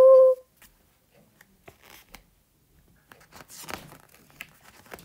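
A voiced train-whistle 'whoo' held for the first half second, then faint paper rustling and crinkling: a picture-book page being turned.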